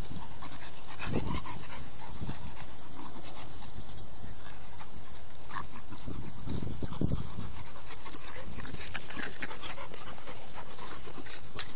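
Two pit bull puppies play fighting, with short low growls about a second in and again around the middle, and panting.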